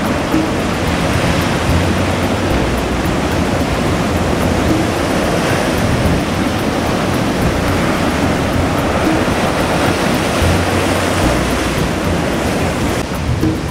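Ocean surf breaking and washing over a rocky shore: a loud, steady rush of waves.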